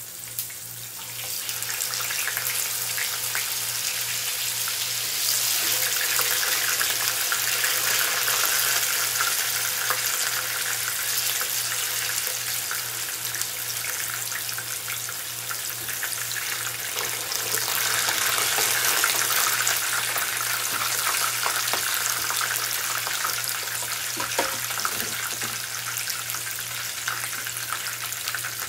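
Blocks of tofu frying in hot oil in a frying pan: a steady sizzle with crackles that starts loud about a second in as the tofu goes into the oil.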